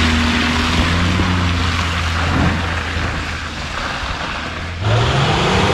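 Off-road 4x4 engine running with a steady drone under a continuous rushing noise. Near the end the sound changes abruptly to a louder engine note that rises and falls.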